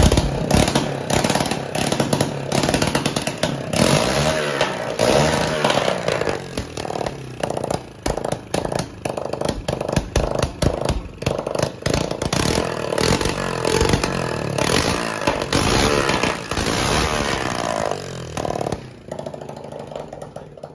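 Hero Splendor's single-cylinder four-stroke engine running on the bare frame, revved up and down several times with a clattering beat; the sound eases off near the end.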